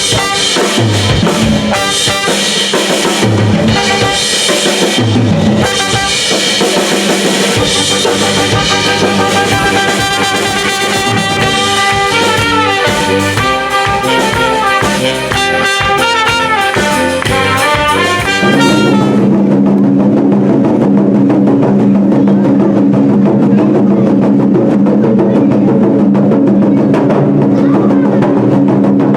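Music with a drum kit and percussion keeping a beat; about two-thirds of the way through it changes to a darker, steadier passage with a held low tone.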